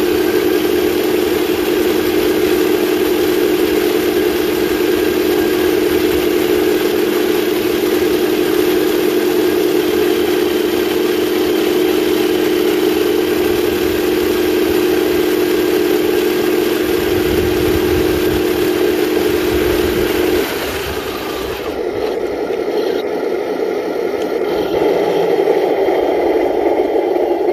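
Simulated engine sound from 1/16 scale RC tanks' sound units, a steady humming engine note while the tanks drive. About twenty seconds in the steady note stops and a rougher, noisier engine sound takes over, growing louder near the end as a tank comes up close.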